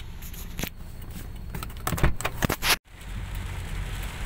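Clicks and knocks of a phone being handled inside a car, then, after an abrupt cut, the steady low rumble and hiss of a car's cabin while driving in the rain.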